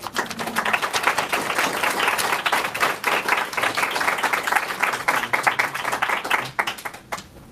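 Small audience applauding, a dense run of many hands clapping that starts at once and dies away near the end.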